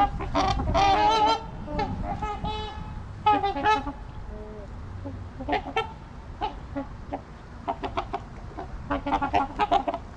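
A flock of trumpeter swans honking: a dense burst of overlapping calls at the start, scattered single honks through the middle, and a quick run of honks near the end.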